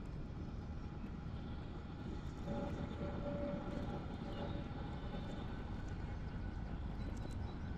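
Steady low drone of a distant engine with a faint hum, swelling slightly about two and a half seconds in.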